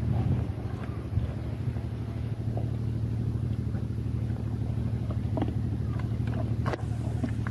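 A steady low hum of an idling engine, with scattered faint wet clicks from Komodo dragons tearing at a wild boar carcass in mud, and one sharper click near the end.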